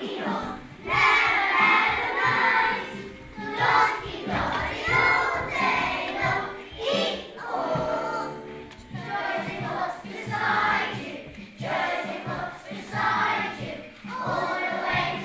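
A group of young children singing a song together over accompaniment music, in phrases with short breaks between them.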